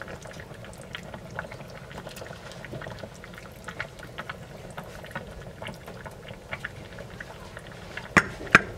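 Soup simmering in a stainless steel pot, bubbling steadily with many small pops, while broth is ladled into a bowl. Two sharp clinks come near the end.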